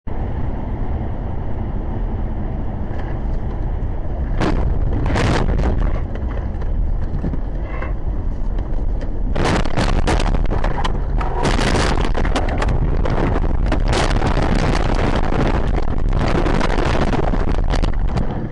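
A car rolling over, heard through a dashcam's microphone: a steady rumble, then sudden bangs from about four and a half seconds in, and from about nine and a half seconds in nearly continuous banging and scraping as it tumbles.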